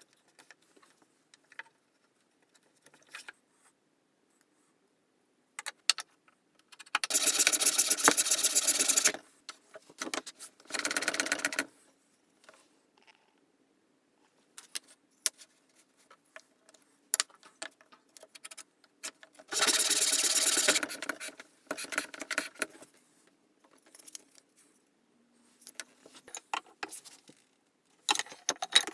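Woodworking at the bench: scattered knocks and clicks of wood and tools being handled, with a few loud stretches of a tool working wood, the longest about two seconds, the first about seven seconds in and another about twenty seconds in.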